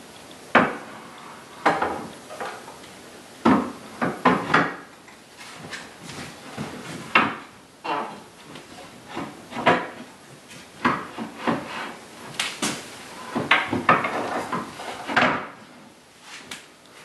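Solid cherry desk parts handled and knocked together: a series of irregular wooden knocks, clunks and short scrapes as the live-edge top and the scissoring base are worked apart by hand.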